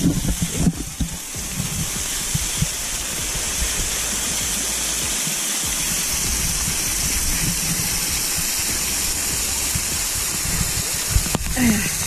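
Waterfall pouring onto rock close by: a steady rush of falling water, with an uneven low rumble underneath.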